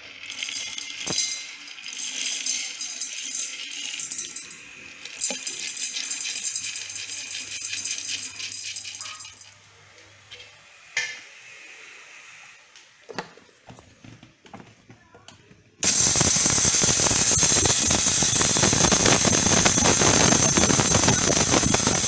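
Light rattling and clinking of dried Indian prickly ash seeds in a steel grinder jar. About two-thirds of the way in, an electric mixer grinder starts abruptly and runs loudly and steadily, grinding the seeds.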